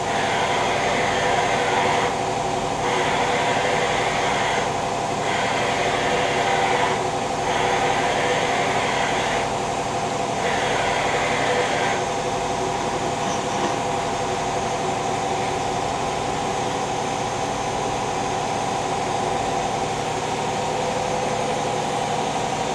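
Hardinge VMC800II vertical machining center running under power: a steady machine hum with several held tones. Over it, a higher-pitched noise comes on for about two seconds at a time with short gaps, repeating, and stops about halfway through.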